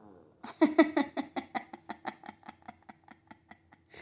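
Puppy whining in a quick run of short, high-pitched whimpers, several a second, loudest at first and fading toward the end.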